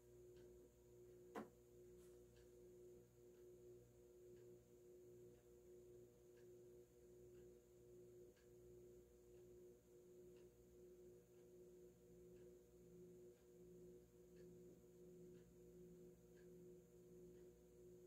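FASCO Heat-Cycler 52-inch industrial ceiling fan motor running at medium speed on a solid-state speed control: a faint, steady hum made of a few held tones. A faint tick comes about once a second, with one sharper click about a second and a half in.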